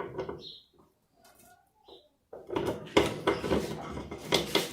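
Clicking and rattling of plastic wiring-harness connectors and latches being pressed and pulled loose on a washing machine, mostly quiet at first and then a busy run of sharp clicks from about halfway in.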